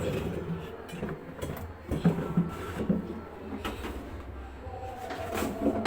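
Irregular clicking, scraping and rattling as a washing machine drum's damper (shock absorber) is worked loose and pulled off its mounting.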